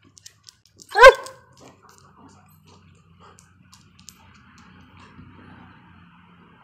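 A German Shepherd barks once about a second in, a single short, loud bark; after it there is only faint low background noise.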